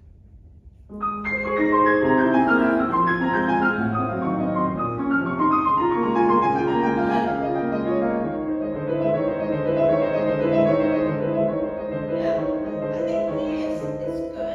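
C. Bechstein grand piano being played. A passage of many notes begins about a second in, with a melody over a repeating lower line, and continues through to the end.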